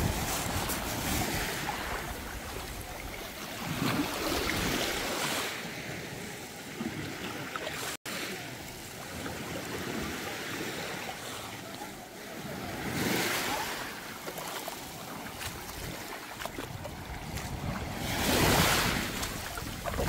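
Small sea waves lapping and washing on a pebble shore, with wind buffeting the microphone. The wash swells a few times and is loudest near the end.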